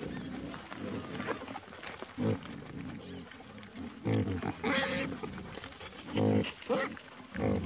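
Wild boar grunting in deep, short bursts, with one shrill squeal about five seconds in, as the sounder squabbles while rooting for food.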